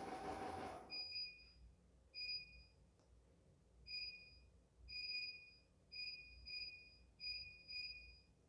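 A rushing noise fades out about a second in. It is followed by about eight short, high, flat-pitched beeps, irregularly spaced, with the later ones coming in pairs.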